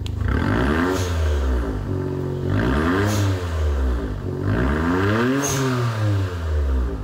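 Daihatsu Copen Robe's 658 cc turbocharged three-cylinder engine revved three times through a Kakimoto aftermarket exhaust, each rev climbing and then falling back toward idle.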